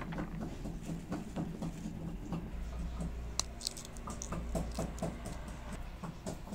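Fresh green pea pods split open by hand, with the peas dropping into a plastic colander: a run of small, irregular clicks and taps.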